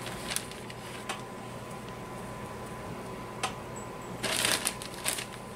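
Plastic bag crinkling and rustling as a hand digs into flour and pulls out pieces: a few short crinkles, then a longer, louder rustle near the end.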